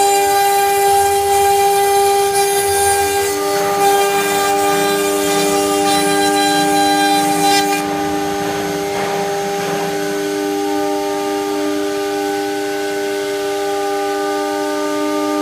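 CNC router spindle running with a steady multi-tone whine while its end mill cuts a 4 mm flat fibreglass sheet. A high hiss on top of the whine drops away abruptly about eight seconds in, leaving the spindle whine alone.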